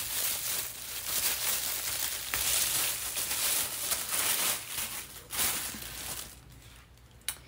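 Clear plastic packaging bag crinkling and rustling as a plastic tea tumbler is worked out of it. The rustling dies down about six seconds in, and a single sharp tap follows near the end.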